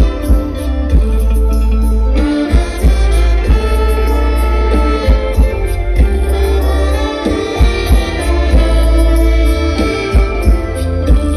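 Loud live Isan (mor lam) stage-band music: a heavy bass line and steady drum beat under sustained melody notes.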